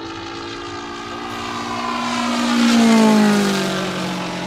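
Propeller-driven model plane's engine flying past. The note grows louder to a peak about three seconds in, then drops in pitch as it passes and recedes.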